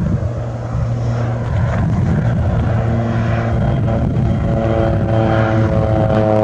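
Crop-duster plane's propeller engine droning steadily overhead, its tone growing clearer over the last few seconds.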